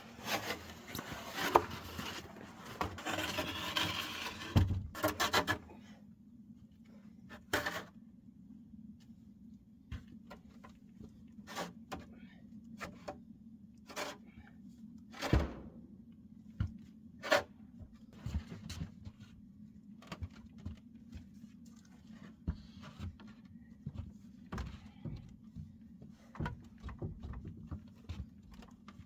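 Hand work on wood: about five seconds of rubbing and scraping, then scattered knocks and taps, over a low steady hum.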